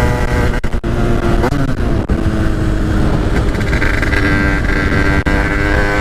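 Small two-stroke dirt bike engine (HM with a TPR 86 cylinder kit) running under the rider, with wind rumbling on the helmet microphone. The engine note falls away about a second and a half in, then rises steadily from about four seconds in as the bike accelerates away.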